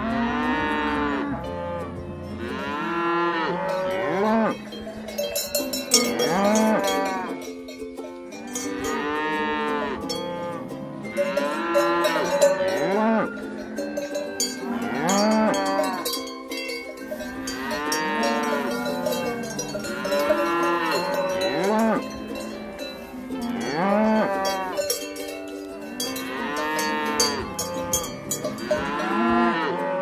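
Cows mooing one after another, a long rising-and-falling moo every couple of seconds, with cowbells on their collars clanking between and over the calls.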